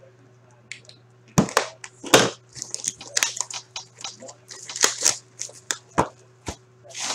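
Shrink-wrapped cardboard hockey card box being slit open and handled: a run of irregular crinkles, crackles and short scrapes of plastic wrap and cardboard, with two sharper cracks in the first couple of seconds.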